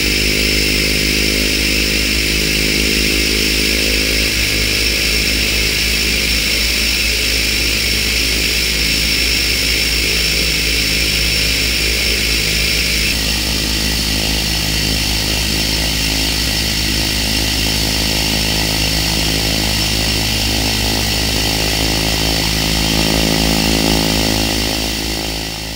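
Pratt & Whitney PT6A-114A turboprop on a Cessna Grand Caravan running after start, a steady turbine whine over the drone of the spinning propeller. About halfway through, part of the high whine drops away. The sound swells slightly near the end as the aircraft starts to roll, then fades out.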